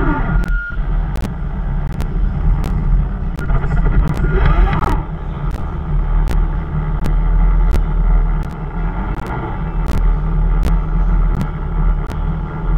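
Radio-controlled crawler driving, heard as a steady low rumble with sharp ticks about twice a second.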